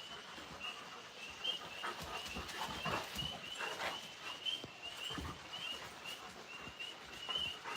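Tree frogs calling steadily in a chorus of short, high, repeated calls, while Alaskan malamutes playing rough give several low vocal sounds in between.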